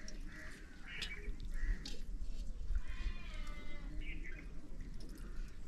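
Animal calls: a few short calls and one longer pitched call about three seconds in, with two sharp clicks in the first two seconds and a low rumble underneath.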